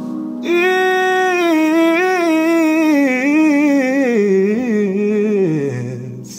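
A male singer's vocal riff: a fast run of some thirty rapidly wavering notes that steps down from high to low and ends on a held low note, over a sustained backing chord.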